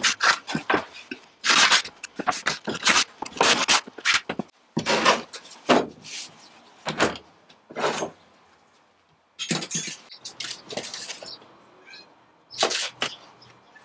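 Hand plane taking quick, repeated strokes along a softwood panel, each stroke a short swish, for about the first eight seconds. After a short near-silent gap, boards and a steel tape measure are handled with clattering knocks and rattles, and a cat meows faintly near the end.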